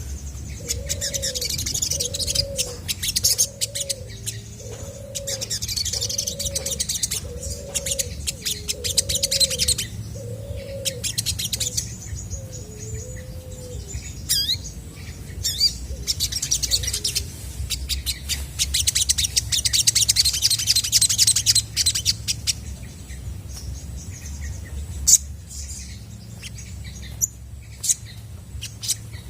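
Olive-backed sunbird singing in full voice: bursts of rapid, high-pitched chirps and trills, coming in spells a few seconds apart. Under it, a lower two-part call repeats about once a second through the first half, then fades out.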